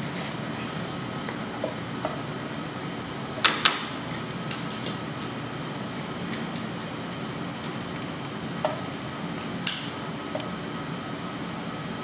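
Plastic tubing and connectors clicking and tapping as they are handled and fitted at a heart-lung machine's roller pump heads: a sharp pair of clicks about three and a half seconds in, then a few lighter ones, over a steady background hum.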